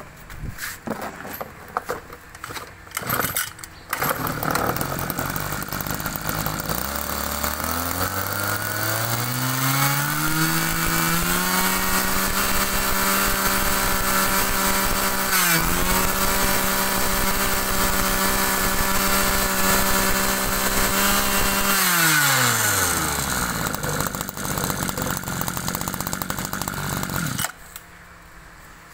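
Small two-stroke engine of a used Japanese brush cutter, run up after a few clicks: it starts about four seconds in, is throttled up to a high steady whine that is held for about ten seconds with a brief dip in the middle, drops back to idle, and is switched off shortly before the end.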